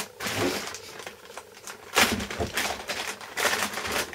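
Plastic wrapping crinkling and rustling in irregular bursts as it is handled and pulled off a boxed part by hand.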